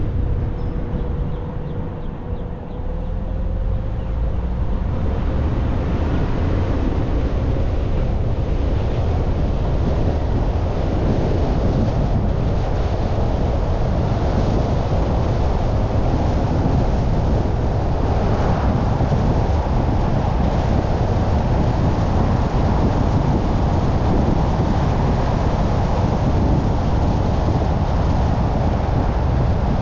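Car driving on a city street: steady road and engine noise with wind buffeting the microphone. It dips briefly near the start while the car sits at a stop sign, then builds as the car pulls away and holds steady.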